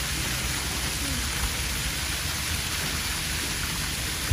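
Ground-level fountain jets spraying water onto wet paving: a steady, rain-like hiss of splashing water.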